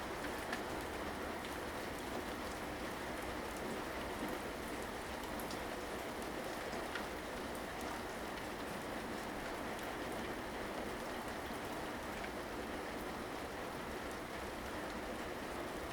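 Steady rain falling and pattering on surfaces, with scattered individual drops ticking.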